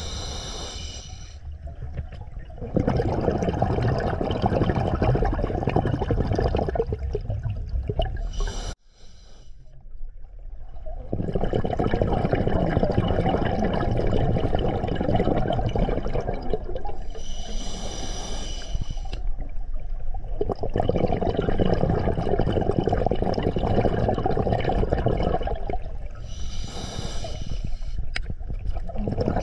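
Scuba diver breathing underwater through an open-circuit regulator: a short hissing inhale, then a long rush of exhaled bubbles, repeating about every nine seconds. The sound cuts out abruptly about nine seconds in.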